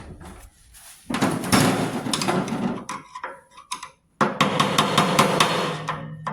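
Metal hammering on a stuck shaft key on a snowmobile jackshaft: a stretch of clattering blows, a short pause, then a quick run of sharp taps about five a second. The key is very stuck.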